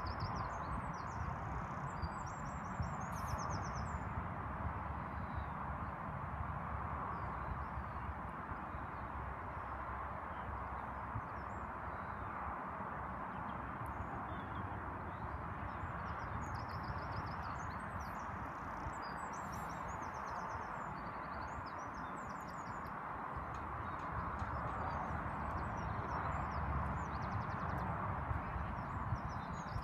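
Outdoor ambience: a steady background hiss with low wind rumble on the microphone, and small birds singing short, quick trills near the start and again about two-thirds of the way through.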